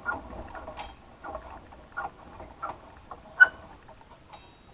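Irregular light clicks and knocks of a table saw being adjusted by hand, with one sharp metallic click about three and a half seconds in.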